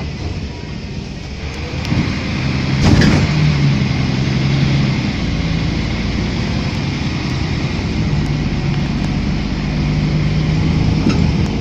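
City bus engine running with road and cabin rumble, heard from inside the passenger compartment; a sharp knock about three seconds in.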